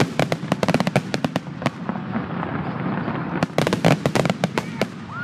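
Aerial fireworks bursting in a rapid barrage: many sharp reports and crackles in quick succession over a steady low rumble. The bursts are densest in the first second and a half and again near the end.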